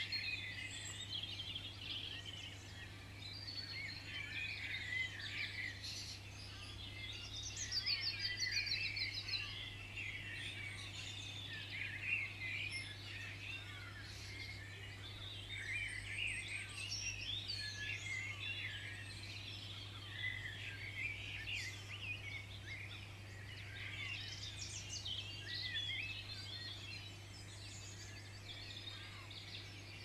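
Small garden birds chirping and twittering, many short overlapping calls, with a fast run of high notes about eight seconds in. A steady low hum runs underneath.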